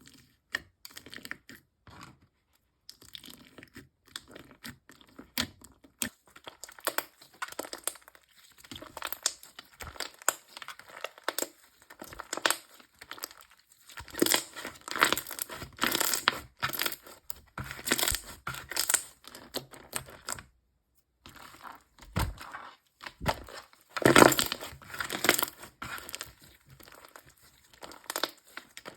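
Slime being squished and stretched by hand: irregular sticky crackles, pops and tearing sounds. They come thicker and louder in the second half, with a short pause a little after the middle.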